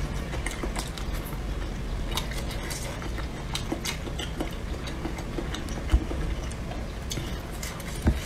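Close-up eating sounds: chewing with small wet mouth clicks, and chopsticks clicking on food and in the hot pot's container, with a dull knock about six seconds in and another near the end.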